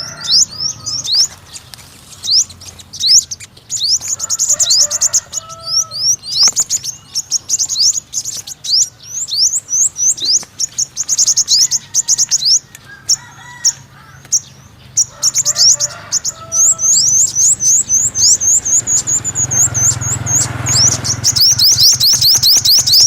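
Sunbird singing: a long, fast twittering series of high, thin sweeping notes, several a second, with a few softer, lower calls in between.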